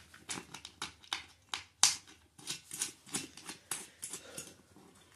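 Irregular small metallic clicks and taps, with one sharper click about two seconds in, as a bolt and washer are handled and started by hand in the steel mounting bracket of a weight-bench seat.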